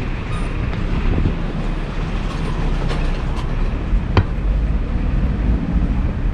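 Steady low rumble of a running vehicle, with a single sharp click about four seconds in.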